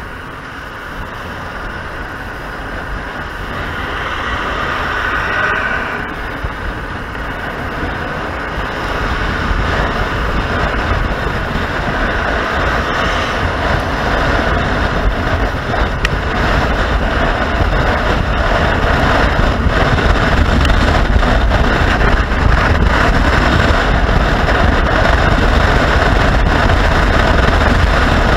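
Motorcycle riding along, engine running with wind rushing over the microphone; the wind and a low rumble grow steadily louder through the first half, then hold steady.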